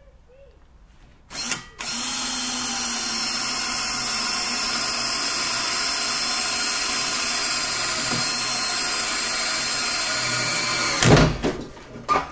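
Cordless drill boring a hole through steel C-channel lubricated with oil. A short spin-up comes about a second in, then it runs steadily for about nine seconds and stops near the end with a loud thump and a few knocks.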